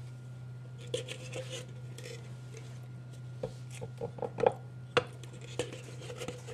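Spatula scooping mayonnaise into a small plastic blender cup: soft scraping with a series of light knocks and taps against the cup and jar, the sharpest about four and a half and five seconds in, over a steady low hum.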